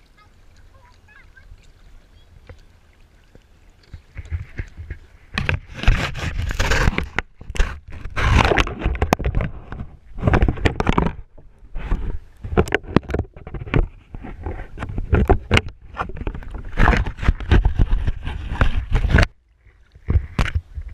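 Loud, irregular bursts of rubbing, scraping and sloshing right against the camera's microphone, starting about four seconds in and cutting off suddenly near the end.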